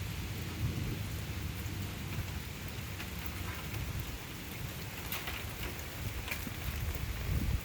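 Heavy rain falling steadily, with scattered sharp drip ticks, over a low rumble of thunder that swells briefly near the end.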